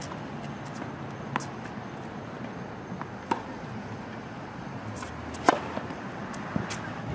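Tennis racket striking the ball on a serve: one sharp pop about five and a half seconds in, the loudest sound here. Two fainter knocks come earlier, over a steady low background hum.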